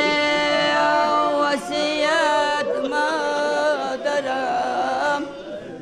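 A man's voice chanting masaib, the mournful sung elegy for Imam Hussain, in long held notes that then waver up and down, dying away near the end.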